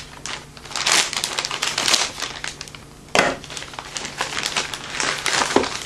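Packaging being opened and handled by hand: irregular crinkling and rustling, with a sharp, louder crackle about three seconds in.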